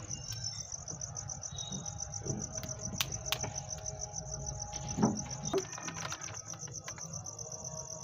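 Crickets chirping in a steady, fast-pulsing high trill, with a few sharp clicks and a soft knock about five seconds in.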